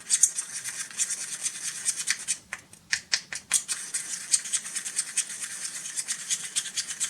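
Rapid, irregular scratching and ticking of a small stirrer against its container as a small batch of flash powder (magnesium powder and potassium perchlorate) is stirred together, with a short pause about two and a half seconds in.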